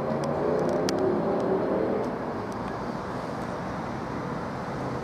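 Steady outdoor rumble of vehicles, with a passing vehicle's hum that swells and fades over the first two seconds. An electric train is approaching in the distance.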